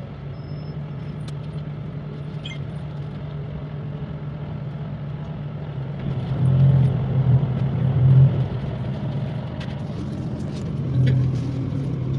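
Bus engine droning steadily, heard from inside the passenger cabin while riding. It grows louder about six seconds in and again near the end.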